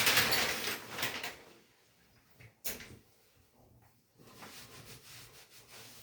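Bathroom shower sounds, not a steady spray: a loud rush of splashing noise that fades over about a second and a half, a single sharp knock, then a softer stretch of water noise.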